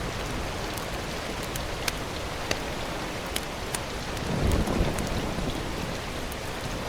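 Steady rain hiss with scattered sharp drop ticks, and a brief low rumble about four and a half seconds in.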